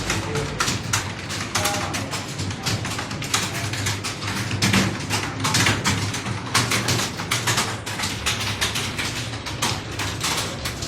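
Many computer keyboards being typed on at once, a dense, continuous clatter of key clicks.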